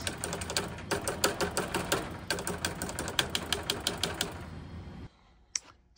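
Rapid tapping on a furnace control board, several taps a second, to jar loose the inducer relay that is suspected of being stuck closed, with the steady hum of the running inducer motor underneath. The tapping stops a little over four seconds in, and a single click comes near the end.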